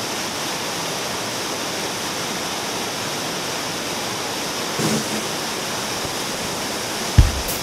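Whitewater rushing steadily over rapids and a small cascade in a narrow rock canyon. Near the end, a couple of heavy drum beats cut in as music starts.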